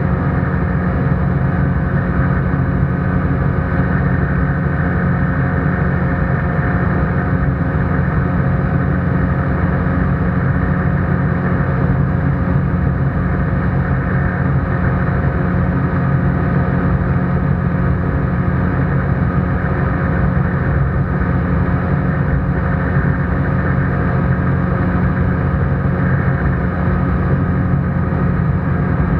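ICP Bingo ultralight's engine and propeller droning steadily in flight, heard from inside the cockpit.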